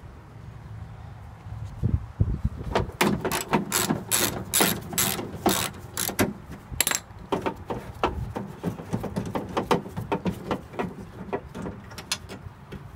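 Socket-wrench ratchet with a 10 mm socket on an extension, clicking in quick, uneven runs as it backs out a bolt inside a truck door. The clicks start about two seconds in.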